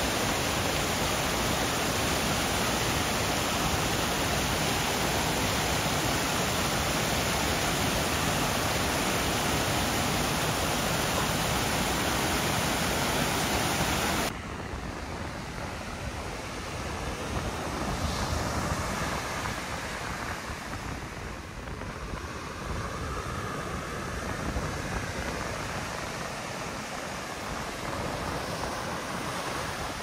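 Water rushing steadily as a small rocky stream cascades over stones. About fourteen seconds in, the sound cuts off sharply to quieter, uneven ocean surf washing up on a sandy beach.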